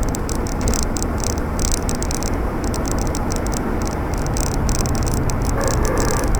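Jaguar XK8 running with an unexplained noise that the owner suspects comes from the transmission. A high hiss cuts in and out rapidly over a steady low rumble, and a steady hum joins about four seconds in.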